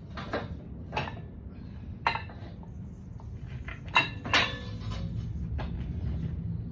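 A handful of sharp clinks and clatters, like hard objects or dishes being handled, over a steady low rumble; the loudest pair come about four seconds in, the second ringing briefly.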